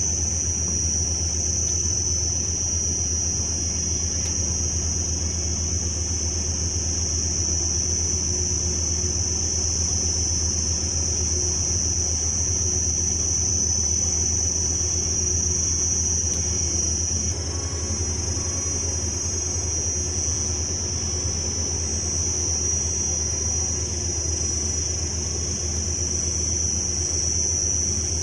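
Heavy excavator diesel engine running steadily with a low drone, under a constant high-pitched hiss or buzz.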